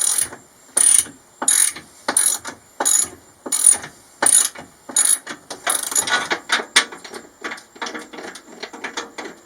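Ratchet wrench clicking in steady back-and-forth strokes, about every two-thirds of a second, as a seat pedestal bolt is turned out. After about six seconds the strokes become quicker and shorter.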